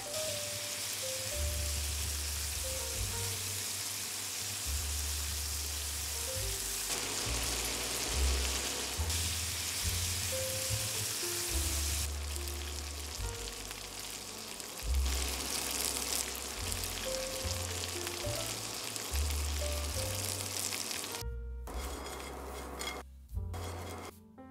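Shrimp and garlic frying in hot oil in a pan, a steady dense sizzle. Near the end the sizzle breaks off in several short gaps.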